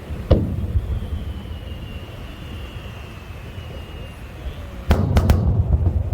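Fireworks bursting: one sharp bang about a third of a second in, then three bangs in quick succession near the end, over a steady low rumble. A faint high whistle falls slowly in pitch between them.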